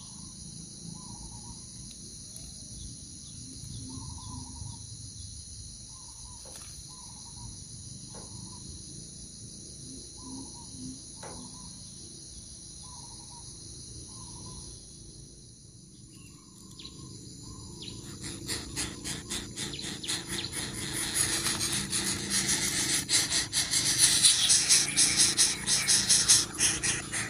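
Steady high-pitched insect drone with short chirps repeated every second or so. About two-thirds of the way through, a much louder rapid rattling buzz starts and grows louder toward the end.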